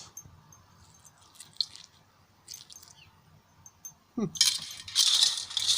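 Small pieces of freshly cast silver–tin solder shot clinking and rattling as they are handled: a few faint ticks at first, then loud rattling from about four seconds in.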